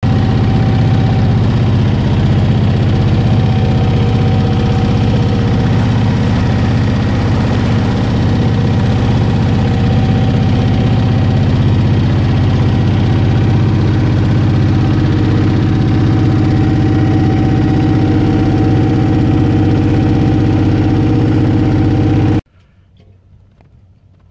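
Small boat's engine running steadily while under way: a loud, constant, even-pitched drone with a rush of water over it. It cuts off suddenly near the end.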